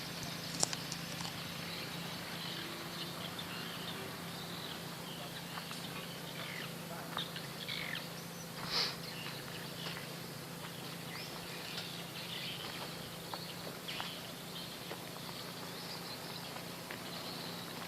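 Outdoor ambience of scattered bird chirps, one a little louder about nine seconds in, over a steady low hum.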